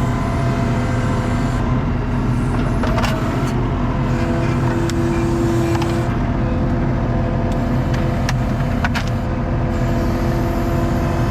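ASV RT-40 tracked skid steer's diesel engine running steadily under load, with its hydraulics whining for a couple of seconds midway. Several sharp cracks of wooden pallets and screws giving way as the grapple pulls a pallet wall apart.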